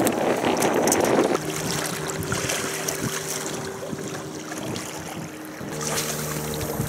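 Wind buffeting the microphone for about a second and a half, then it stops suddenly and a quieter steady hum of a few held pitches remains, its pitch changing near the end.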